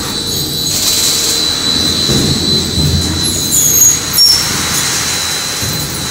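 Popcorn coating and tumbling-drum machinery running: steady loud machine noise with a constant high-pitched whine, a few short high squeaks and a sharp click about four seconds in.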